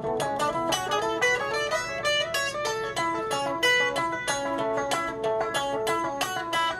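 Telecaster-style electric guitar picking a quick stream of single notes through an Eventide H3000 delay, the delay repeats filling in between the picked notes.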